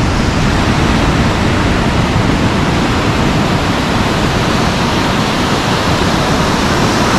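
Ocean surf breaking and washing up a sand beach: a loud, steady rush with no distinct strokes.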